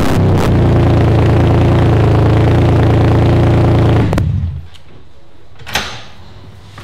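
Porsche 981 Cayman S's 3.4-litre flat-six running with no exhaust aft of the header catalytic converters, very loud. It settles from its start-up flare into a steady fast idle, is switched off about four seconds in and dies away. A single short knock comes about a second and a half later.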